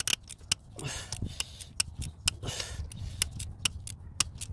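Socket ratchet clicking in short irregular runs as it is worked back and forth on a seized glow plug.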